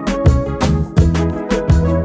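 Background music with a steady beat: regular percussive hits over a pitched bass line and melody.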